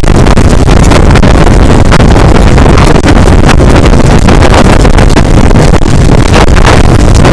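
Heavy wind buffeting a microphone mounted outside the window of a moving passenger train, over the rumble of the train running on the rails. The noise is loud and steady, broken by frequent short knocks.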